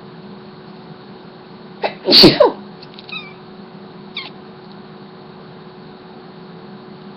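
A person sneezes once, loudly and suddenly. About one and two seconds later come two short, faint, high calls from a young cat responding to the sneeze, over a steady low hum.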